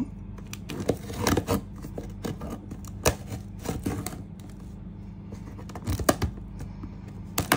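Small metal scissors cutting and scraping along the packing tape on a cardboard box seam: irregular snips, scrapes and clicks of the blades against tape and cardboard, a few of them louder.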